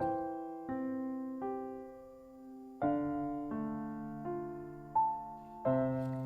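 Background music: slow, gentle piano, single notes and chords struck about once a second, each fading away.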